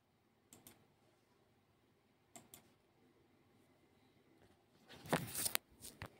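Faint computer mouse clicks, two quick press-and-release pairs in the first few seconds, with a louder short noise about five seconds in followed by one more click.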